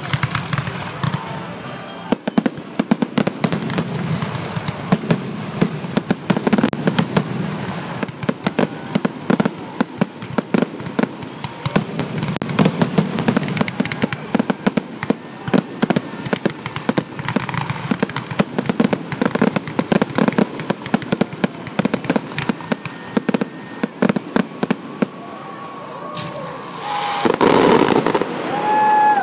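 Fireworks finale: aerial shells bursting in a rapid, continuous barrage of booms and crackling, with a louder swell near the end.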